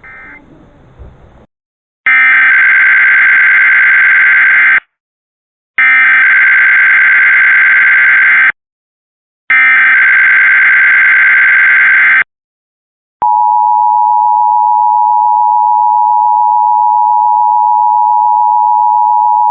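Emergency Alert System tones for a Required Monthly Test. After a moment of faint hiss come three identical bursts of warbling SAME header data, each about two and a half seconds long with a second of silence between them. About a second later the steady two-tone EAS attention signal starts and holds.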